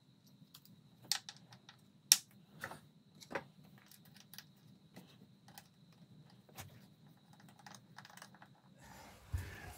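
Scattered small clicks and taps from hands refitting a boost pressure sensor into a diesel engine's intake and tightening its screw with a screwdriver; the sharpest click comes about two seconds in. A faint steady high tone runs underneath.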